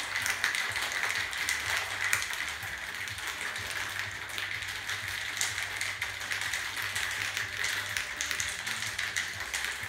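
Ice rattling inside a metal cocktail shaker being shaken hard: a continuous, dense clatter of clicks and knocks. The drink is being chilled until the tin frosts on the outside.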